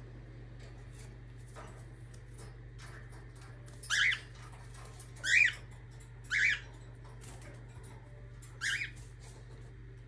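Cockatiel giving four short, sharp contact calls, each sweeping upward in pitch, spread over about five seconds.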